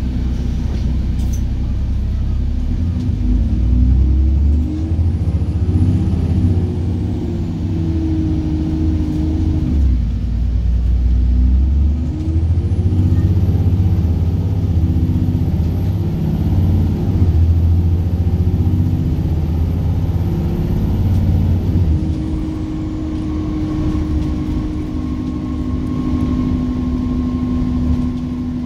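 Onboard sound of an ADL Trident 2 / Enviro 400 double-decker bus on the move: the diesel engine drone rises and falls in pitch with a faint high whine over it. In the last several seconds it settles into a steadier, quieter hum.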